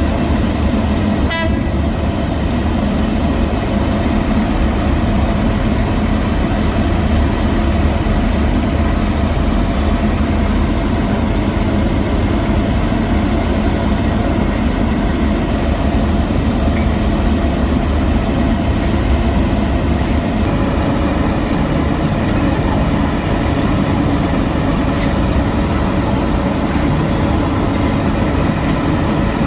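Heavy road-construction machinery engines running steadily with a continuous low rumble. A short rattle of clicks comes about a second in.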